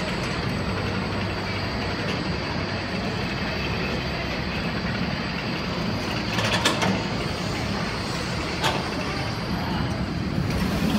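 Steel roller coaster train running on its track as it climbs the vertical lift and crests the top: a steady rumble of mechanical noise with a few sharp clanks, about six and a half and nine seconds in.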